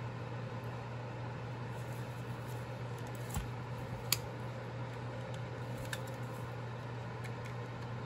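Steady low hum with two short clicks a little past the middle, the second sharper and louder. The clicks are the Zeus E2 gaming mouse's buttons being pressed as a right-click menu opens.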